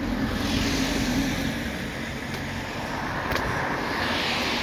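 Road traffic: cars passing along the street, a steady tyre-and-engine noise that swells twice, about half a second in and again near the end.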